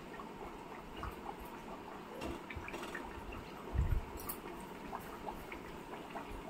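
Khasta kachoris frying slowly in a kadhai of oil on medium flame: a soft, steady sizzle with small scattered crackles. A dull thump a little past halfway is the loudest sound.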